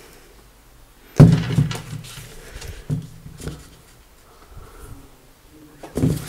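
Handling noise from a pair of knit high-top sneakers being picked up, turned over and moved about by hand: a loud knock about a second in, then softer knocks and rustles.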